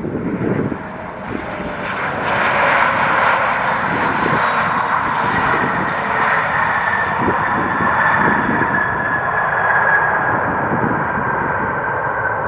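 Jet airliner's engines passing close by: a loud, sustained rush that builds up about a second and a half in, with a high whine that slowly falls in pitch. Wind gusts on the microphone at the very start.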